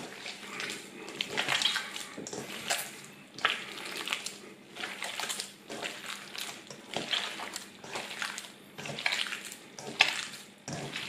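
Hands kneading and squeezing minced pork belly and shoulder, mixed with salt and spices, in a stainless steel bowl: a wet squishing that swells and fades in irregular pulses every second or two. This is the salami mince being worked before it is stuffed into casings.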